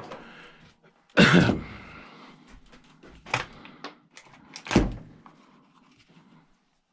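Dismantled chainsaw parts being tossed onto sorted scrap piles: a loud clattering thunk about a second in, then two lighter thunks about two and three and a half seconds later, with faint handling noise between.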